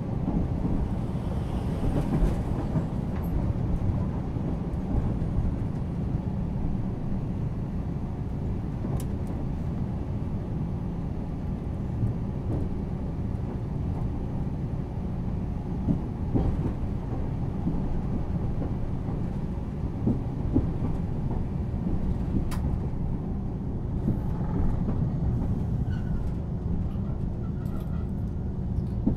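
Nagasaki Electric Tramway Series 202 tram, a 1950 Nippon Sharyo car with resistor control, running along the line: a steady rumble of wheels on rail with occasional sharp clicks.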